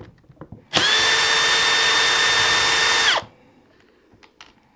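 Cordless power drill running steadily at one speed for about two and a half seconds, with a steady whine, then stopping with a brief drop in pitch; it is likely backing out screws to free the impact wrench's gearbox assembly.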